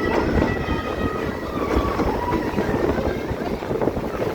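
Passenger train running along the track, heard from on board: a steady rumble of wheels and carriages. A few thin, high tones fade out in the first second and a half.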